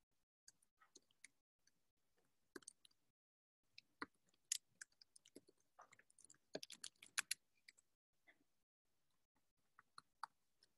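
Faint keystrokes on a computer keyboard: irregular taps as shell commands are typed, with a quick run of keystrokes a little past halfway.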